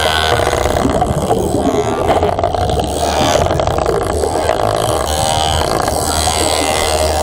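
Steady, loud underwater rumble and bubbling, the noise of a working diver's surroundings picked up by a camera beneath the surface.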